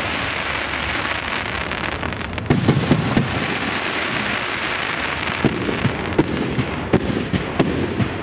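Fireworks display: continuous crackling and popping over a steady hiss, with a cluster of heavier bursts about two and a half seconds in and several more in the second half.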